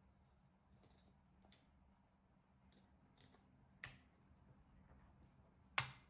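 Metal and plastic burr parts of a Baratza Sette 270 grinder being handled and fitted together by hand: scattered faint clicks, a sharper click about four seconds in, and the loudest click near the end.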